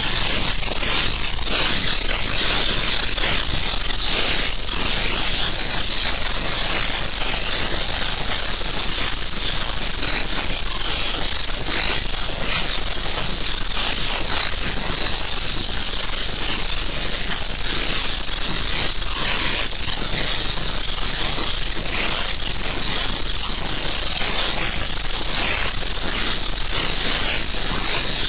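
Dense, steady chorus of night insects: a shrill, high, pulsing trill that never lets up.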